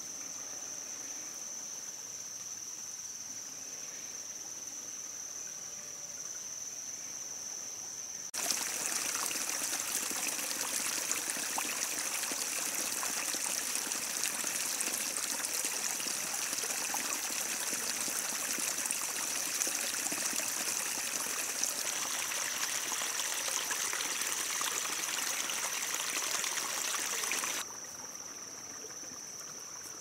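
A steady, high-pitched insect chorus. About eight seconds in, the sound of running water cuts in abruptly, louder than the insects, and breaks off just as suddenly a couple of seconds before the end.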